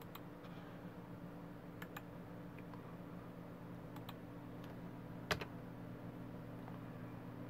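A handful of sharp, separate clicks from a computer keyboard and mouse as text is copied and pasted, the loudest about five seconds in. A steady low hum runs underneath.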